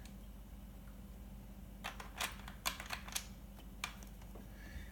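Several light plastic clicks and taps, clustered from about two to four seconds in, as small nylon handle-mount pieces are handled and pressed into place on a freezer door.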